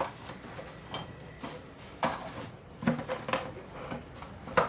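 Small plastic action-camera mount parts and a mounting screw clicking and tapping as they are handled and fitted onto a motorcycle helmet's chin mount. The taps come at irregular intervals, the sharpest one near the end.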